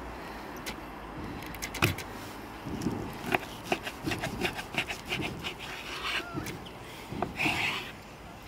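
Kitchen knife slicing through raw meat and knocking on a wooden cutting board: irregular sharp taps with short scraping strokes between them.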